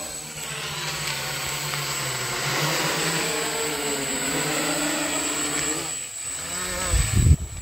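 DJI Naza-M Lite F450 quadcopter's brushless motors and propellers whirring with a thin high whine, growing louder over the first couple of seconds as the drone comes down close. Near the end it is caught by hand overhead and heavy rumbling gusts of prop wash hit the microphone, before the noise dies down at the very end.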